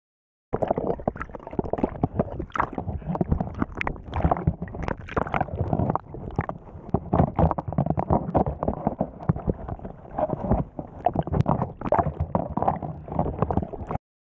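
Water sloshing and gurgling around a camera held just under the surface, heard muffled, with many small knocks and crackles. It starts abruptly about half a second in and cuts off near the end.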